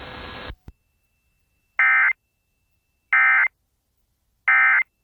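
EAS end-of-message (EOM) signal: three short, loud, buzzy digital SAME data bursts about a second apart, marking the end of the weather alert. A steady radio hiss cuts off about half a second before them.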